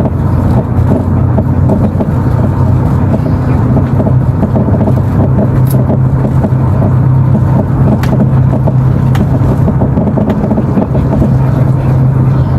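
Citroën Xsara Picasso on the move, its suspension knocking and rattling over a steady background of engine and road noise, with a few sharper clicks. This is the suspension noise that the owner blames on worn stabiliser bar links, which he calls one of the biggest culprits on this car.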